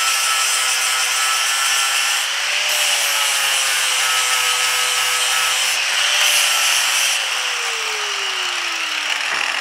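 Angle grinder with a flap disc grinding steel bolt stubs flush against steel armour plates, its sound changing as the disc goes on and off the work. Near the end the grinder's pitch falls steadily as the motor winds down.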